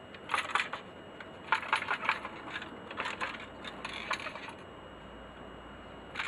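Something loose rattling inside a Nuclear Enterprises type 2601 gamma dosemeter as the unit is shaken, in several short bursts of light clicking over the first four seconds or so. The owner suspects the loose piece could be in the meter movement.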